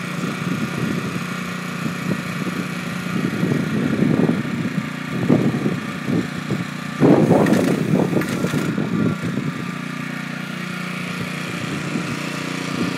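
The engine of an airless line-marking machine running steadily, with irregular louder rumbling surges over it in the middle, loudest about seven to nine seconds in.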